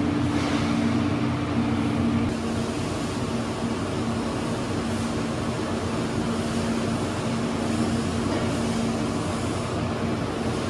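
Steady drone of running machinery: fan noise with a low electrical hum in two tones, the higher of which cuts out about two seconds in.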